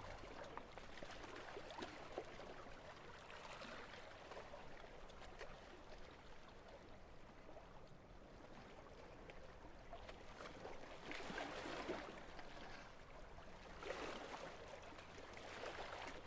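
Faint sea ambience: small waves washing against shoreline rocks, with two louder swells in the second half.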